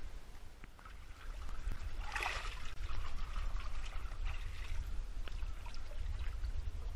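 Shallow seawater splashing and trickling as a swimmer pushes through a narrow rock gully, with a burst of splashing about two seconds in and scattered drips and small splashes after it, over a steady low rumble.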